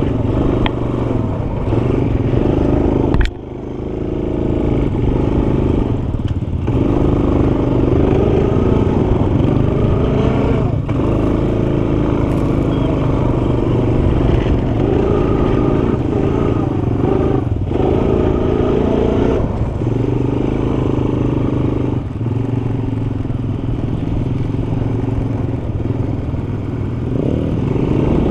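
ATV engine running under throttle as the quad is ridden, its note dipping briefly several times. A sharp click a few seconds in is followed by a sudden drop in loudness.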